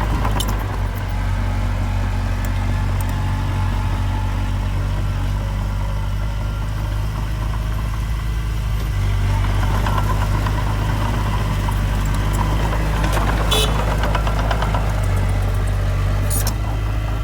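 Heavy construction machine's diesel engine running steadily, with a few short sharp clanks over it.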